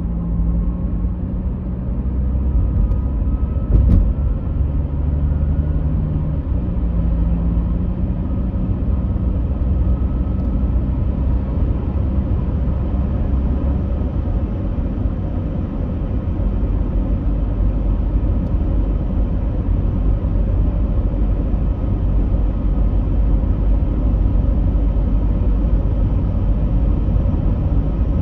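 Steady low rumble of a moving vehicle with a faint hum over it, and a single click about four seconds in.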